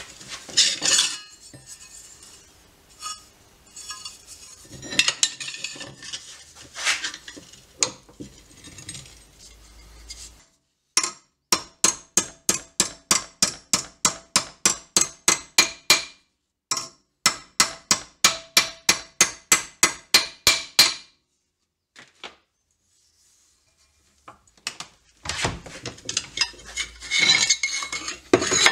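A ball-peen hammer striking a steel strip clamped in a bench vise, bending it over, in two steady runs of blows at about four a second through the middle. Before and after them the steel and the vise clank and scrape as the piece is set in the jaws and taken out.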